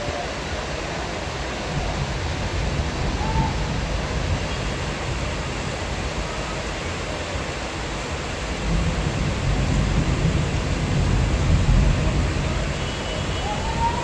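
Heavy rain pouring steadily, with low rumbles of thunder building about two seconds in and again, louder, from a little past halfway.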